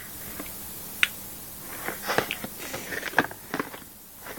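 A small cardboard phone box being handled: a few sharp clicks and taps with brief light rustling in between.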